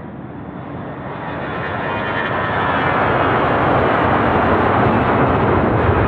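Airbus A321 airliner's twin jet engines at takeoff power, the noise building steadily louder as the aircraft approaches.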